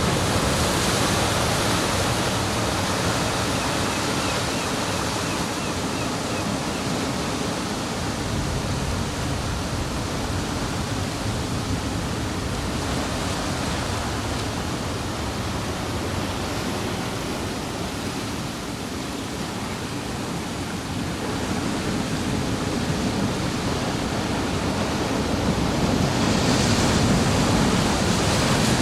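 Ocean surf washing onto a beach: a continuous rushing noise that eases off past the middle and swells up again near the end as a new wave comes in.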